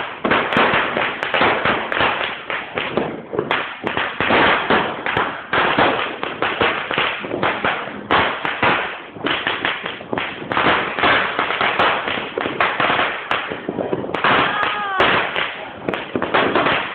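A string of firecrackers going off in a dense, unbroken crackle of rapid sharp bangs.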